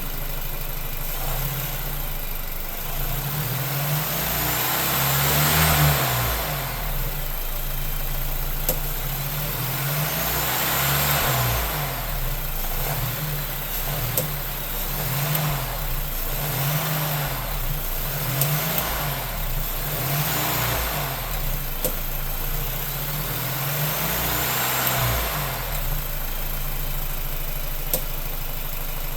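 2024 Lincoln Corsair's 2.0L EcoBoost turbocharged four-cylinder engine revved up and let fall back several times, with a faint whine rising and falling along with the revs and a few sharp single pops in between. The owner cannot place the popping and rattling on light acceleration and deceleration, and wonders whether it comes from an actuator or a variable intake manifold.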